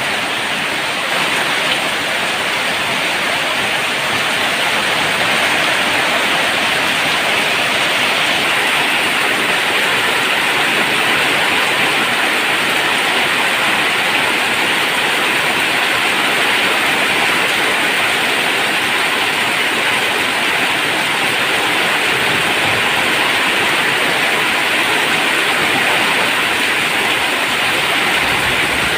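Heavy monsoon rain pouring steadily on a tin roof, a loud, even hiss and patter.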